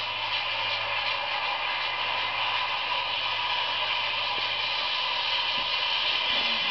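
Freight cars of a slow Canadian Pacific mixed freight rolling past, a steady hiss of steel wheels on the rails.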